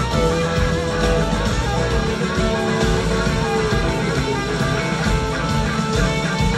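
Live rock band playing: an electric guitar lead in long held notes over drums and a second guitar, recorded from within the audience.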